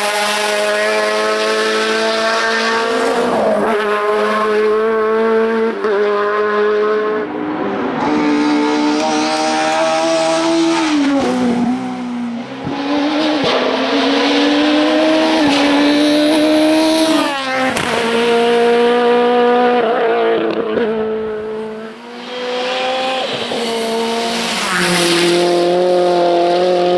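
Touring race cars accelerating hard uphill through hairpins one after another, their engines revving high. The pitch climbs through each gear and drops sharply at every upshift or lift, with some tyre squeal in the corners.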